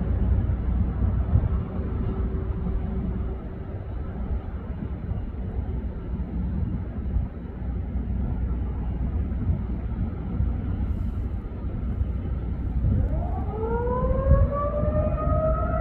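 Outdoor tornado warning siren starting up about thirteen seconds in: its pitch climbs steeply, then levels off into a steady tone. Under it runs a continuous low rumble, and a faint steady tone dies away in the first few seconds.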